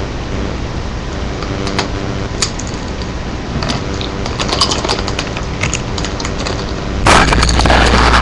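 Scattered crackles and crunches of Doritos tortilla chips and their bag as a cat gets into them, over a steady low hum. Near the end a much louder rustling noise starts suddenly.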